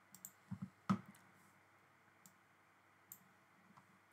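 Computer mouse clicking a handful of times at irregular intervals, the loudest click about a second in, with faint room tone between.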